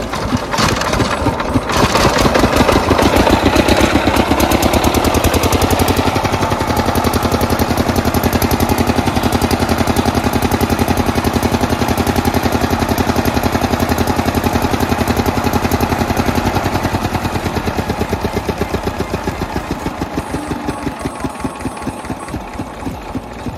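Diesel engine of a generator set catching in the first two seconds and running with a fast, even firing beat, then slowing down near the end, its separate firing strokes spreading out as it winds down.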